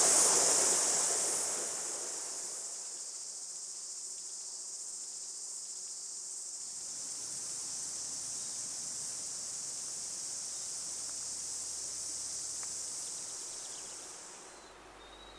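Steady, high-pitched insect chorus, cutting off shortly before the end. Rushing water fades out in the first two seconds.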